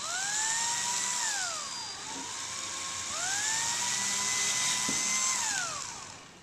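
Cordless drill boring a hole through PVC pipe. The motor whine rises to speed, holds for about a second and winds down, then runs slower for a moment, speeds up again and holds for about two seconds before winding down near the end.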